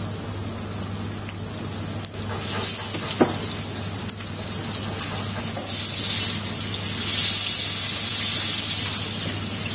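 Flour-coated chicken frying skin-side down in hot oil in a nonstick pan, sizzling steadily and getting louder and brighter a few seconds in. A few faint clicks come from a wooden spatula pressing the meat.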